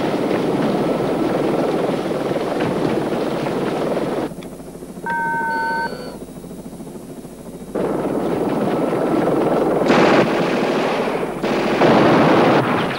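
Rapid gunfire over helicopter rotor noise in a TV action scene. About four seconds in, the noise drops away for a few seconds, and a short steady electronic beep sounds in the gap. Then the firing and rotor noise return, loudest in two bursts near the end.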